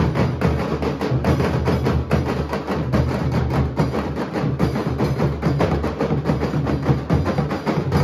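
Nashik dhol ensemble: many large barrel drums beaten with sticks together in a loud, fast, continuous rhythm, deep booming strokes mixed with sharp cracking stick hits.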